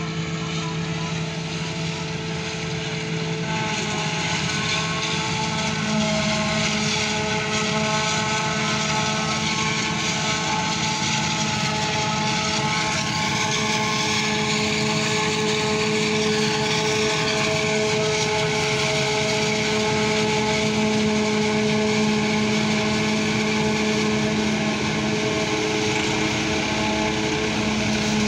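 Self-propelled forage harvester chopping standing maize for silage, with a Massey Ferguson 385 tractor pulling the trailer alongside: a loud, steady machinery drone made of several held tones over a hiss. The tones shift to new pitches a few seconds in, then hold steady.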